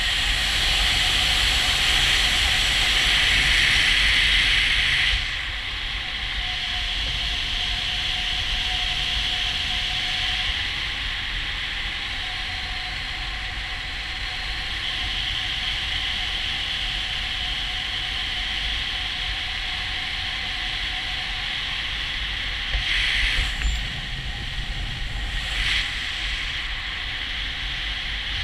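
Airflow rushing over the microphone of a paraglider in gliding flight, engine off. It is louder for the first five seconds, then settles to a steadier rush, with two short gusts near the end.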